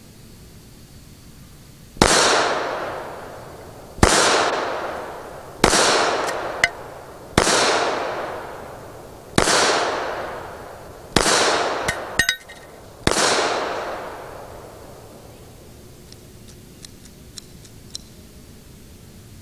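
Seven shots from a semi-automatic pistol, about one and a half to two seconds apart, each with a long echoing tail. A few small metallic clinks fall between some of the shots, and faint clicks follow a few seconds after the last shot.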